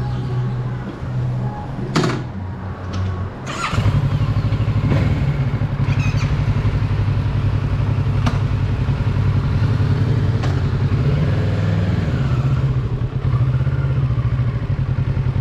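2019 Kawasaki Z650's parallel-twin engine running, quieter at first with a couple of sharp knocks, then about four seconds in growing louder and running steadily under way, with a brief dip near the end.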